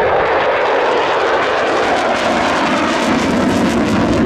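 F-16 fighter jet engine passing at an air show, a loud steady rush of jet noise that drops in pitch about halfway through as the jet goes by. It crackles in the second half as the jet pulls away in afterburner.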